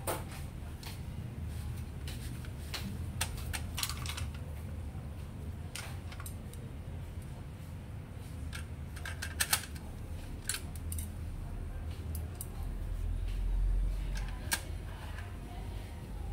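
Scattered light clicks and taps of plastic and metal printer parts being handled and worked with a screwdriver inside an opened HP LaserJet M26a laser printer, at the laser scanner unit and its flat cable. A steady low hum runs underneath and swells briefly about 13 seconds in.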